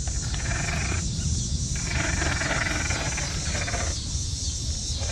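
RC rock crawler's electric motor and gears whirring in throttle bursts, a short one and then a longer one of about two seconds, over a steady low rumble.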